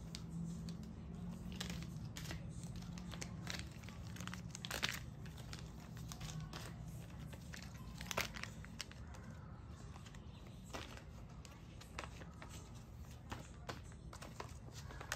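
Sheet-mask sachets crinkling and rustling as hands shuffle through a stack of them, with scattered sharp crackles of the packets.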